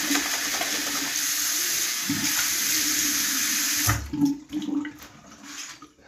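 Water running from a bathroom tap into a sink, a steady hiss that is shut off abruptly about four seconds in, followed by a few quieter knocks.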